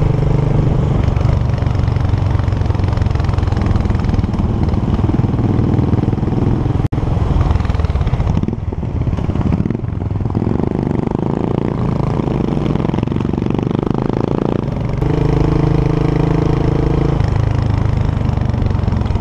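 Motorcycle engine running while riding, heard close up over road and wind noise, its note changing with the throttle; it drops out for an instant about seven seconds in, and the note settles into a steadier pitch about fifteen seconds in.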